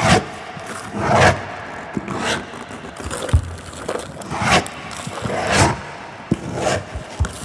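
Rough scraping strokes repeating about once a second, each a short rising-and-fading swell, with soft low knocks between them: a sound-design track built from raw sounds of structures.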